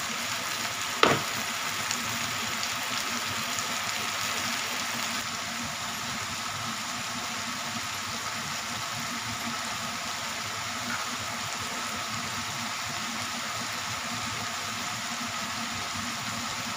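Coconut milk and taro leaves sizzling and bubbling in a wok, a steady hiss as the milk reduces almost dry and starts to give off its oil. A spatula clinks once against the wok about a second in.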